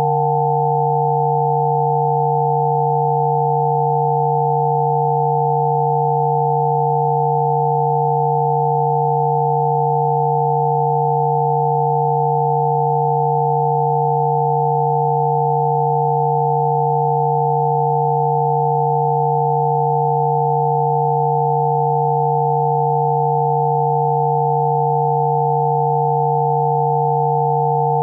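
Several steady electronic sine tones sound together without change, one low and a few higher, making a constant hum-like chord. It is a Rife frequency set played as audio.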